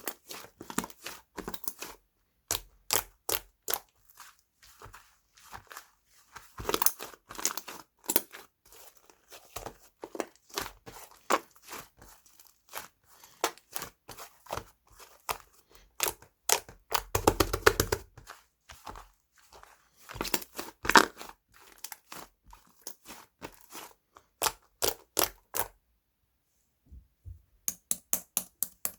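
Close-up handling sounds: irregular crinkles, tears and small taps of crinkly material being worked by hand. There is a denser rustle a little past halfway, and a short pause near the end.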